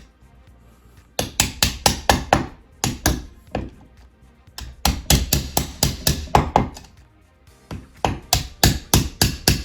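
Rapid light tapping on the KitchenAid mixer's metal trim band as it is knocked into place: three bursts of sharp taps, about four to six a second, starting about a second in.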